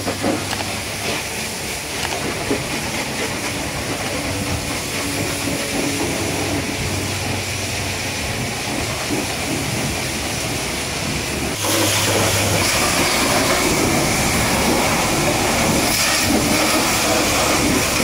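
High-pressure washer jet spraying water onto truck tyres and wheels: a steady hiss with a faint low hum beneath it. About two thirds of the way through it jumps abruptly louder and brighter and holds there.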